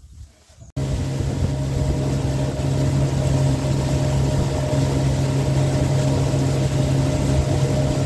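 Boat motor running steadily as the boat cruises over open water, a constant low drone over a steady hiss. It cuts in abruptly less than a second in.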